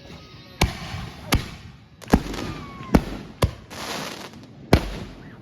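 Aerial fireworks going off: about six sharp bangs at uneven intervals, some followed by crackling.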